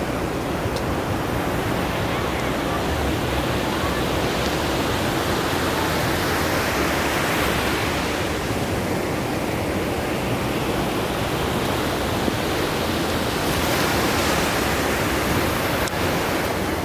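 Ocean surf: a steady rushing wash of waves, swelling a little twice as the waves break.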